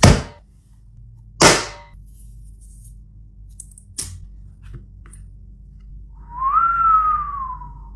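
Two loud sharp hits about a second and a half apart, each fading quickly, a small click about four seconds in, then one whistled note near the end that slides quickly up and then slowly back down.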